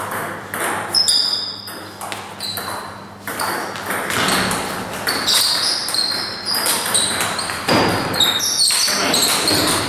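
Table tennis rally: the ball clicking sharply off the bats and bouncing on the table, each hit with a short high ping that rings in the hall.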